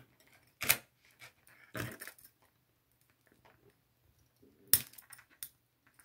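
Jewelry pliers and a metal jump ring clicking against a charm chain: about four light metallic clinks spread over several seconds as the jump ring is worked closed.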